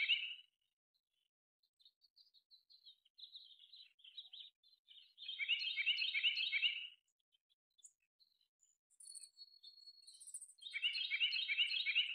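A small songbird singing a rapid, chattering song phrase about a second and a half long, repeated roughly every five seconds, with softer chips and notes between the phrases.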